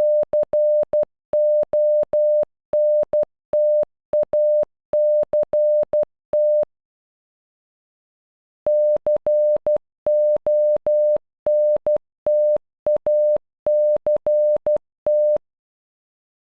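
Morse code beeps in a single steady mid-range pitch, short dots and longer dashes spelling CONTACT (-.-. --- -. - .- -.-. -). The word is played twice, with a pause of about two seconds between the two runs.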